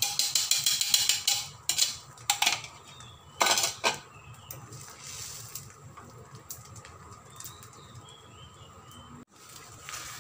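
Beaten egg crackling and sizzling in a hot nonstick pan for the first second or so, then a few clattering knocks of kitchen dishes and utensils about two and three and a half seconds in, after which only a quieter background remains.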